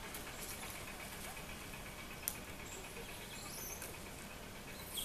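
Quiet outdoor ambience with faint high-pitched chirping glides about three to four seconds in and again near the end, and one sharp click a little after two seconds.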